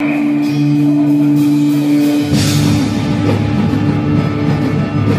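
Background rock music: a held low note for about two seconds, then the full band comes in and the music turns busier and fuller.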